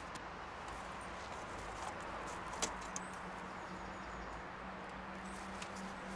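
Quiet garden ambience: a steady hiss with a low hum, and a few faint clicks and rustles as plants are handled, the sharpest click about two and a half seconds in.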